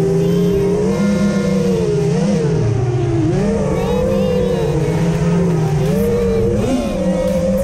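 FPV quadcopter's motors and propellers whining, heard from the craft's own camera, the pitch rising and falling every second or so as the throttle is worked.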